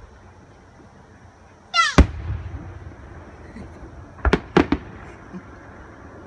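Aerial fireworks exploding: a short high-pitched squeal ending in a sharp loud bang about two seconds in, then a quick cluster of three bangs a couple of seconds later.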